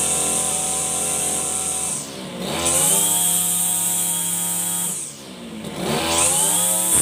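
33cc BG328-type two-stroke brush cutter engine revved at full throttle, eased off about two seconds in and again about five seconds in, dropping in pitch and climbing back to high revs each time.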